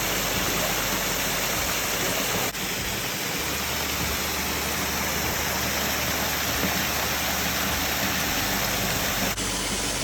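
Steady rush of water from a small creek waterfall, briefly dipping twice, about two and a half seconds in and near the end.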